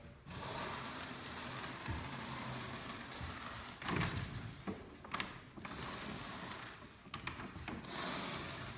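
Sawdust and wood shavings rubbed and scraped off a canvas, a continuous rustling with a few light knocks about four, five and seven seconds in.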